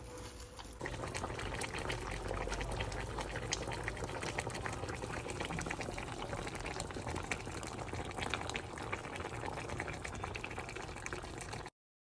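Water bubbling and splashing continuously. It comes in about a second in and cuts off abruptly shortly before the end.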